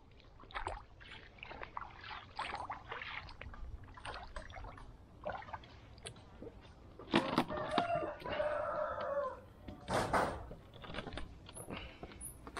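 Footsteps squelching through soft wet mud, in irregular steps. A single drawn-out bird call sounds about eight seconds in.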